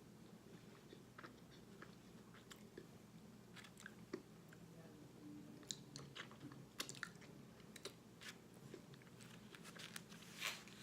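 Faint crunching and chewing of microwave-baked cornstarch chunks, with scattered sharp crunches, the loudest a little before the end.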